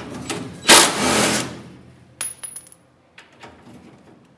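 A cordless power tool runs for about a second, backing out a bolt of the accelerator pedal bracket on a steel firewall. About two seconds in, a small metal fastener drops and bounces with a bright ring and a few lighter clicks.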